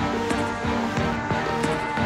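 Background music with a steady beat, about three strokes a second.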